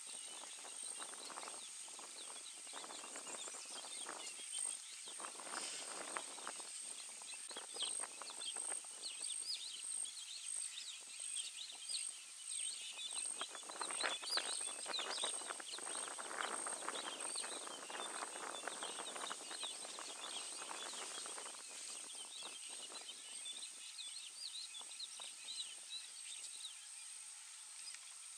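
Savanna bush ambience: a steady high insect whine with many short bird chirps over it, and bouts of rustling and crackling in the brush, heaviest midway through.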